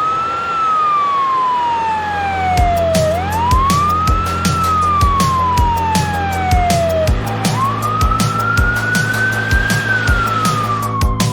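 Ambulance siren wailing: a pitch that sweeps up quickly and slides slowly down, about every three and a half seconds, with a longer, slower cycle near the end. From about two seconds in, a steady thumping beat of about two a second runs under it.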